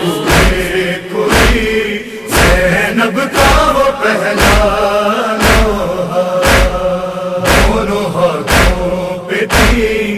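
Interlude of an Urdu noha: a chorus of voices chants a held refrain over heavy, even beats about once a second, the matam (chest-beating) rhythm that accompanies nohas.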